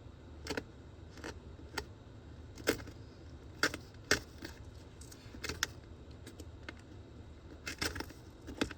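Painter's tape being peeled off a painted wall: irregular short, sharp crackles and snaps.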